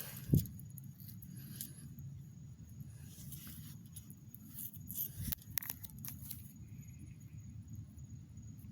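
A sharp thump about a third of a second in, then scattered crackles, clicks and scrapes around the middle, over a steady low rumble.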